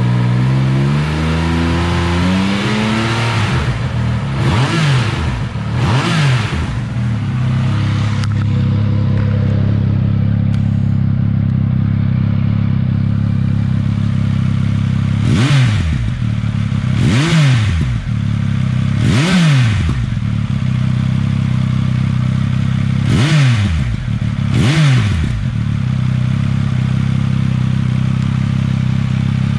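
Triumph Speed Triple 1200 RS's inline-three engine idling through an SC Project CRT slip-on muffler, with a slow climb in revs at the start and then seven quick throttle blips, each rising and falling, with steady idle between. The revs go toward 5,000 rpm, where this muffler measures 101–105 dB.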